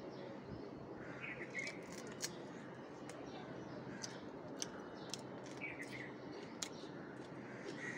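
Scattered sharp clicks and smacks of someone eating fried chicken lollipops by hand over a steel plate. A crow caws in the background about a second in and again near six seconds.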